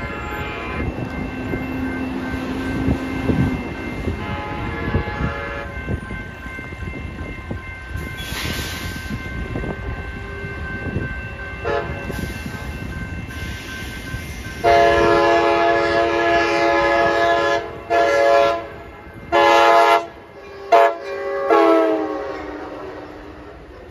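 Amtrak Pacific Surfliner passenger train rumbling along the rails as it approaches. About two-thirds in its horn sounds loudly: one long blast, then a few shorter ones, the last dropping in pitch as the train passes close by.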